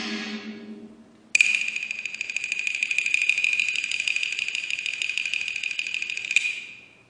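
Opera ensemble music dies away. About a second and a half in, a high-pitched tone starts suddenly, pulsing rapidly, holds for about five seconds and fades out near the end.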